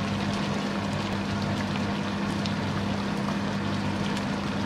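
Steady low electrical hum of a running kitchen appliance, with an even hiss beneath and a few faint clicks as a spoon stirs curry in a frying pan.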